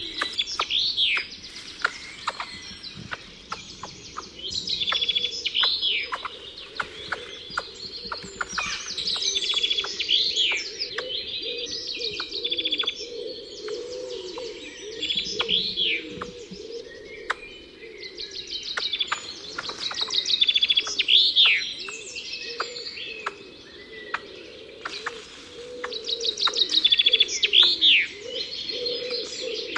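Songbirds singing: short phrases of rapid high trills and down-slurred whistles come again every few seconds, over a lower, steady warbling.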